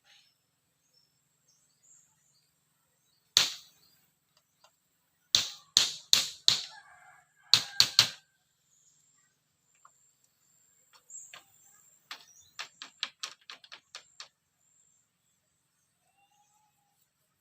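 Sharp knocks in short groups: a single one about three seconds in, a cluster of four and then three in the middle, and a quicker, fainter run of about eight near the end.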